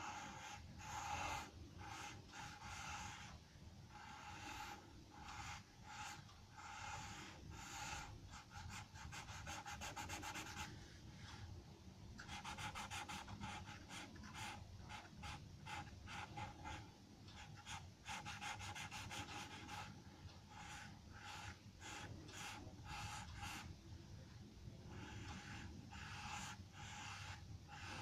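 Charcoal pencil scratching across paper in quick, short, repeated strokes, coming in runs with brief pauses between them.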